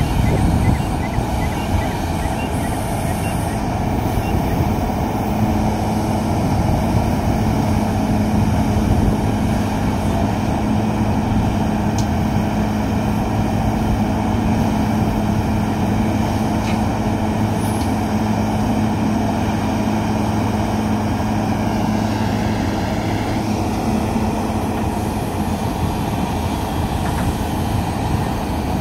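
Heavy diesel engines of a Komatsu PC1250 hydraulic excavator and a Komatsu HD465 dump truck running steadily while the excavator loads the truck with soil. The sound is a deep, continuous rumble, with a steady hum through the middle that drops away about two-thirds of the way through.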